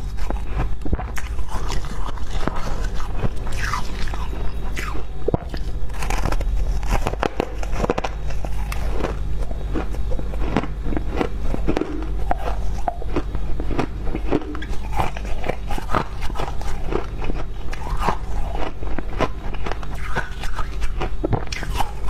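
Frost crunching as it is scooped or bitten: many short, irregular crunches, over a steady low hum.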